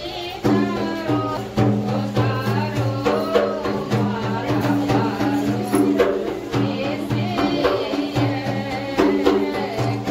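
Folk song: a singing voice over steady held drone notes, with percussion strokes beating time.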